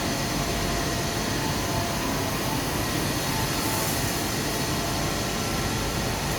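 Steady machine noise: a constant, even whir and rumble with a few faint steady tones, with no starts, stops or knocks.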